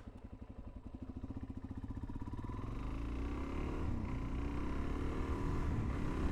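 Suzuki DRZ400's single-cylinder four-stroke engine pulling the bike along, with slow, distinct firing pulses at first, getting steadily louder, and rising in pitch as it speeds up about three seconds in.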